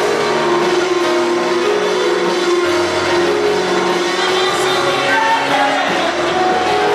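Gospel song: voices singing a melody over instrumental accompaniment, steady throughout.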